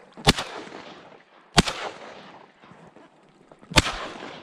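Shotgun fired three times at ducks taking off, about a second and a half and then two seconds apart. Each shot is a sharp crack followed by a short echo. The last shot empties the gun.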